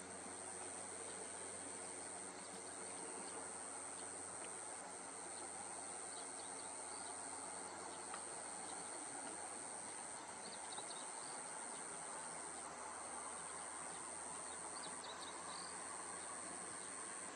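Steady high-pitched insect chorus, unbroken throughout, with three short clusters of high bird chirps.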